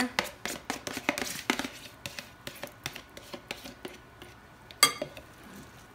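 Spoon scraping the last of the yogurt out of its container and knocking it into the bowl of raita. Quick clicks and scrapes come in the first two seconds, then scattered taps, with one sharp knock a little before the end.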